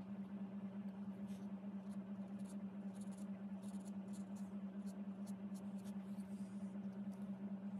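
A steady low electrical-sounding hum with a quick, even pulse, over which come faint, short scratches of a bamboo calligraphy pen dragging paint across paper.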